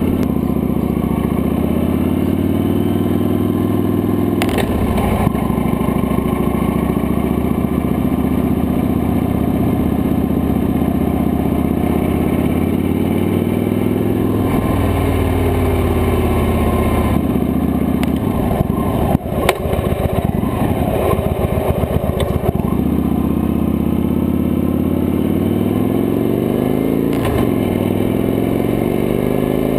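Victory High-Ball's V-twin engine running under way, heard close up from the handlebar, its note rising and falling several times with speed and gear changes. Roughly two-thirds of the way through, the sound turns choppy and rough for a few seconds before settling back.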